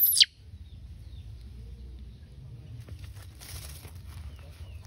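A loud, high-pitched rising squeal cuts off a moment in. Then light rustling and crackling of dry leaves, with faint short falling chirps from small birds near the end.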